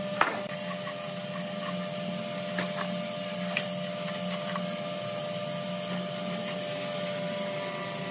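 Steady mechanical hum of workshop machinery running, with a sharp knock right at the start and a few light taps of hands handling the hardwood beams.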